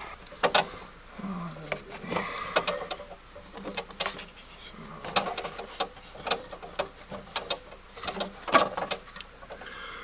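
Irregular metallic clicks, clinks and scrapes of hand tools on a lawn mower's metal guards and screws, with a few sharper knocks.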